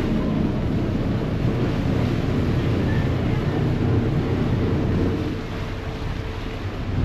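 Passenger ferry's engine rumbling and its propeller churning the water as it pulls away from the wharf, with wind buffeting the microphone.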